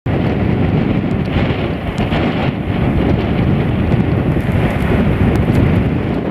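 Strong gusty wind buffeting the microphone: a loud, steady, rough noise that keeps shifting in strength.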